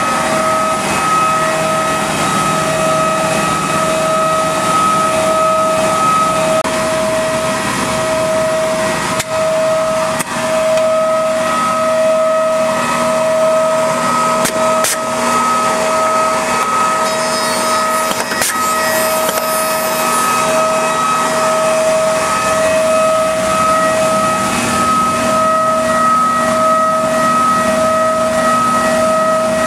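Maggi 3/50 edgebander running with its conveyor, end trim and top and bottom trimmers on while a panel feeds through: a steady machine whine that pulses evenly, with a few sharp clicks.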